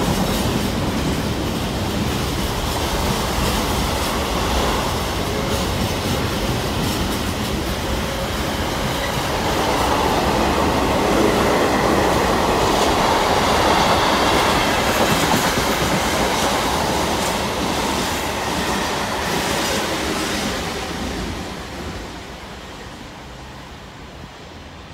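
Container freight train wagons rolling past close by, with wheels clicking over the rail joints. The noise fades over the last few seconds as the end of the train passes and it draws away.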